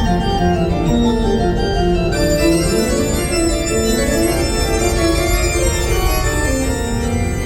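Organ music with sustained chords and a moving melody line.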